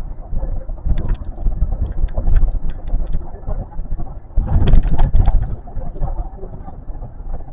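Running noise of an Osaka Metro New Tram, a rubber-tyred automated guideway train, heard from inside the car: a low rumble with scattered clicks and knocks, swelling louder about four and a half seconds in.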